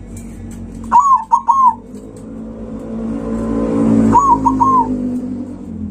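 Zebra dove (perkutut) cooing: two short phrases of quick bubbling coo notes, four notes about a second in and three notes about four seconds in. A vehicle engine swells up and fades away under the second phrase.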